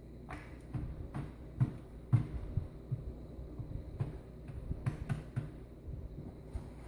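Irregular soft dabs, taps and scrapes as a wet Titebond 3 glue slurry is worked into the crevices of a foam vivarium background, over a steady low hum.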